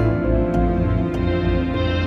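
Background music: held chords with a light, regular beat, a little under two beats a second.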